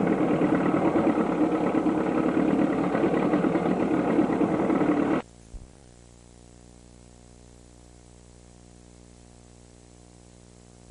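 A small boat's engine idling steadily. It cuts off suddenly about five seconds in, leaving only a faint, steady electrical hum.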